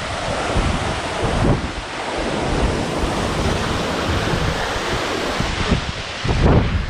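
Waterfall water rushing in a strong flow, a dense steady noise, with wind buffeting the microphone in low gusts.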